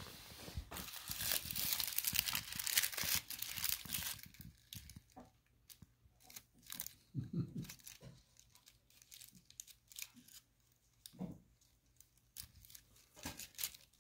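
Metallic foil crinkle ball crinkling as it is handled and bitten by a kitten: dense crackling for the first four seconds or so, then scattered short crackles.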